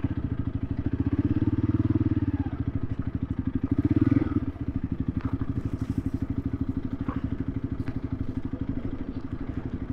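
Motorcycle engine running at low revs with a steady, rapid low pulse, briefly louder around four seconds in.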